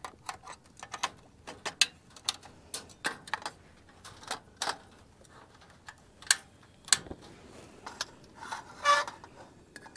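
Scattered sharp clicks and light knocks at irregular intervals, from handling a cooking pot on a portable gas stove, with a short pitched sound about nine seconds in.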